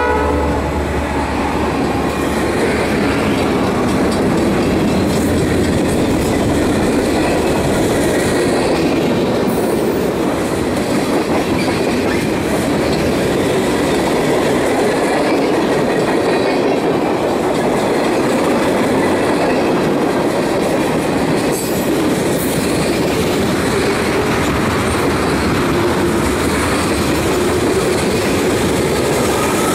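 Loaded freight train cars passing close by at speed: a steady loud rumble and clatter of steel wheels on the rails. The diesel engine of the trailing locomotive, a C44-9W, fades out over the first couple of seconds.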